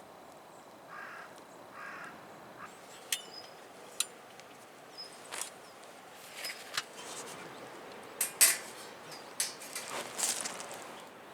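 Small hard objects being handled: scattered sharp clicks and light clinks, a couple with a brief ring, among soft scuffs and scrapes, busiest near the end, over a faint steady background hiss.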